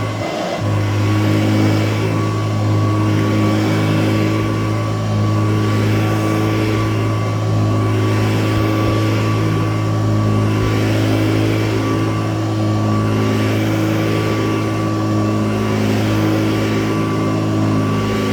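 Vintage Kirby Model 519 upright vacuum cleaner running steadily while dry-vacuuming a rug: a constant motor drone with a thin whine over it, rising and falling slightly every two to three seconds.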